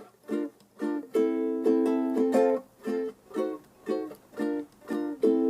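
Music: a ukulele intro strumming chords in a steady rhythm. Short, clipped strums alternate with longer ringing chords.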